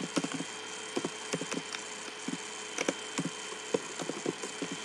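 Computer keyboard typing: a dozen or so irregular key clicks over a steady background hiss.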